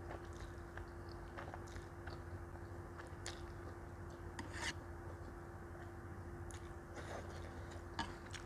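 Close-up eating sounds: noodles slurped and chewed with soft wet mouth smacks and clicks, a longer slurp about four and a half seconds in, and a sharp click near the end as wooden chopsticks touch the metal tray. A faint steady hum sits underneath.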